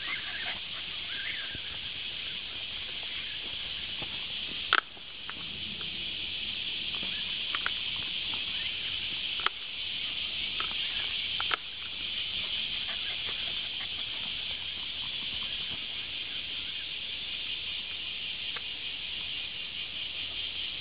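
Steady high insect chorus droning from the forest, with light patter on the dirt trail and a few sharp knocks, the loudest about five seconds in.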